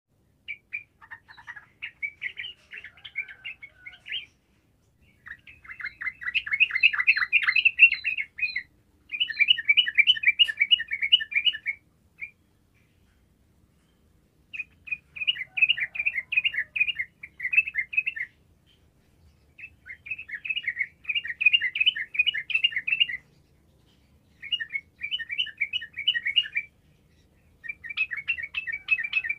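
Yellow-vented bulbul in full song: seven phrases of quick, chattering notes, each lasting two to four seconds, with short pauses between them and a longer pause about halfway through.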